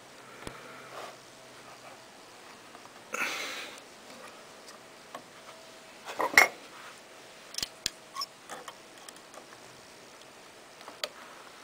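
Scattered metal clicks and clinks of hand tools on the steel parts of a Kleinschmidt TT-98 teletype as its selector camshaft screws are worked loose. A brief scraping rustle comes about three seconds in, one louder clink a little after six seconds, and a few lighter ticks follow.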